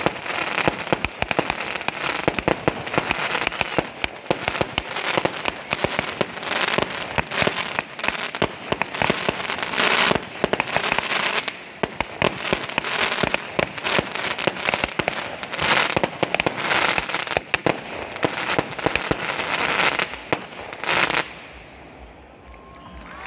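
A fireworks display sets off a dense, rapid barrage of bangs and crackling. It stops suddenly near the end.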